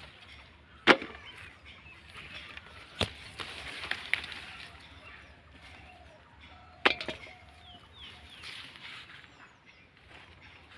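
Bean vines and leaves rustling and brushing against the recording phone as it is pushed through the plants, with three sharp knocks, the loudest about a second in, then about three and about seven seconds in.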